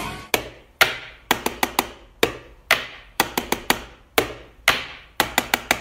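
Sharp knocks in a steady repeating rhythm: two single knocks, then a quick run of four, with the pattern coming round about every two seconds.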